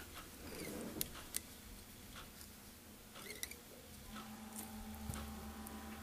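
Faint scratching and rustling of fingers handling rubber legs and thread on a fly-tying hook, with two small sharp clicks about a second in. A faint steady hum comes in about four seconds in.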